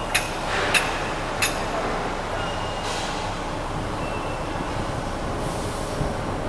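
Steel slitter blades and spacer rings clinking together three times in the first second and a half, each with a short metallic ring, over a steady factory machinery hum. A brief hiss comes near the end.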